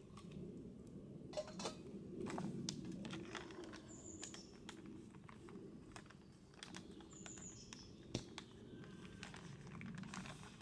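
Faint rustles and clicks of hands working with foil food pouches, over a low, shifting murmur, with two short falling bird chirps about four and seven seconds in.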